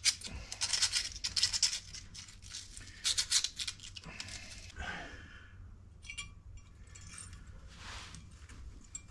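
Quick rasping strokes of hand scrubbing with an abrasive on metal brake hardware (pad clips and caliper sliders), in bursts. The strokes are thickest in the first two seconds and again around three seconds in, then fainter and more scattered.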